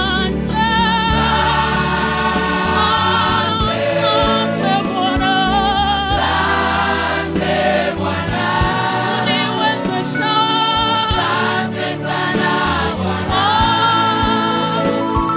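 Gospel music with a choir singing over a steady beat and sustained bass.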